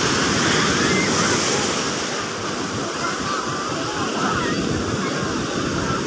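Ocean surf breaking and washing in the shallows, a steady rush of water that is loudest in the first two seconds or so and eases a little after.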